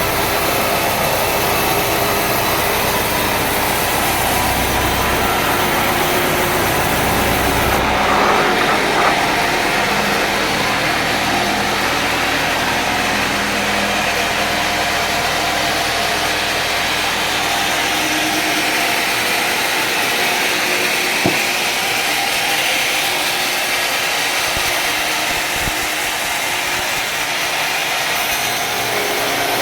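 Sawmill saw cutting through a mahogany log, a steady loud machine noise with its engine rumble. The deep rumble drops off about eight seconds in while the cutting noise carries on, and there is a single short knock later.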